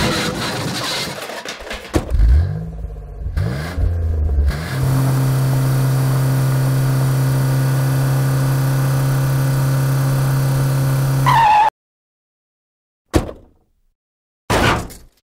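Engine sound effect for a small cartoon truck. It starts with clatter and revs up in rising pitch glides, then runs at a steady pitch for about seven seconds and cuts off suddenly. Two short sounds follow near the end.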